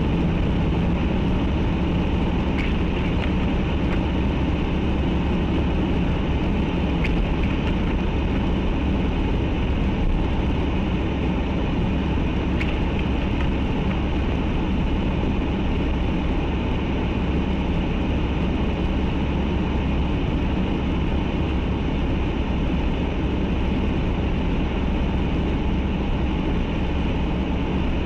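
Steady rumble and road noise of a moving vehicle, unchanging throughout, with a few faint ticks.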